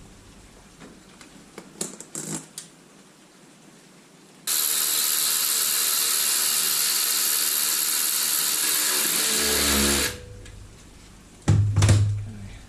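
A power tool runs steadily for about five and a half seconds, starting and stopping abruptly, after a few light clicks and knocks of work on the car. A short low thump comes near the end.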